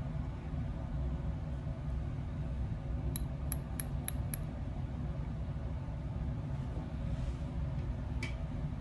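Fingers flicking a glass test tube of iodine dissolving in cyclohexane: five sharp glassy ticks, about four a second, starting a little past three seconds in, over a steady low hum. One more single click comes near the end.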